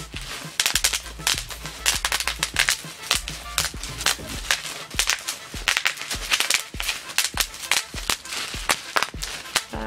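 Plastic bubble wrap being popped by hand: a rapid, irregular run of sharp pops, several a second, as bubble after bubble bursts.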